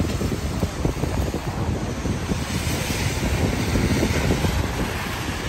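Wind buffeting the microphone over steady city street traffic noise.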